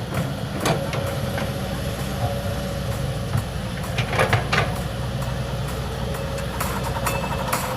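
Kobelco excavator's diesel engine running steadily, with scattered sharp knocks and clanks, several close together about four seconds in.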